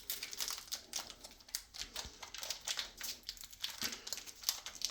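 Pokémon card pack packaging crinkling and crackling in irregular clicks as someone tugs and picks at it, struggling to get it open.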